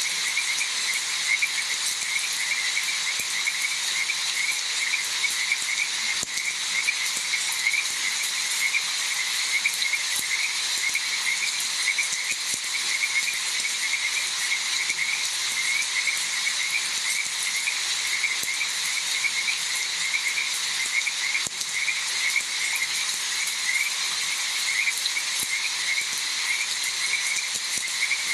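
Frogs calling in a steady, evenly repeated chorus over an even hiss of rain, with a steady high insect drone behind.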